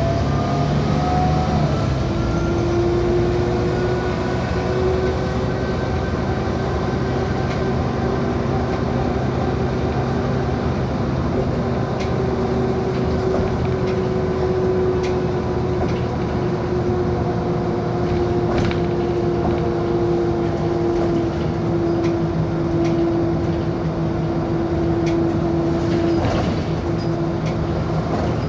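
Mercedes-Benz O405GN articulated city bus under way: engine and drivetrain drone with a steady whine. The pitch rises, then drops about two seconds in, and after that the drone holds steady, shifting slowly, with a few light knocks and rattles later on.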